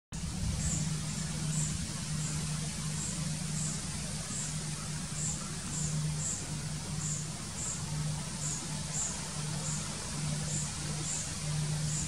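Red-bellied woodpecker chick begging with short, thin, very high calls repeated a little under two a second. A low hum comes and goes underneath.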